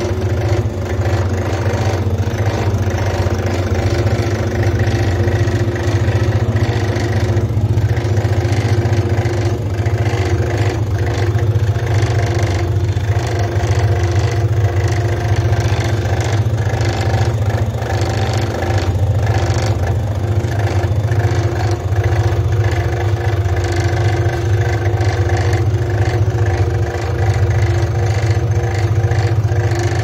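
High-pressure car-wash washer running: its electric motor and plunger pump hum steadily at one even pitch, with light ticking over the top.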